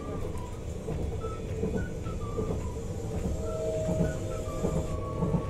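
Steady rumble of a KLIA Express electric train running, heard from inside the carriage, with a steady hum and short faint tones above it.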